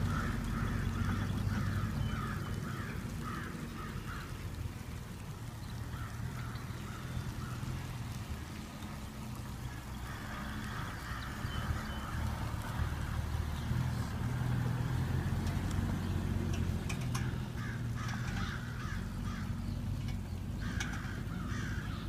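Jeep Wrangler's engine running at low speed as it drives slowly across grass, a steady low hum that swells and eases. Crows caw in bursts of repeated calls near the start, midway, and again near the end.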